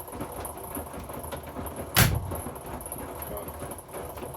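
Hoover washing machine running its wash, a steady low rumble and rattle, with one sharp knock about two seconds in.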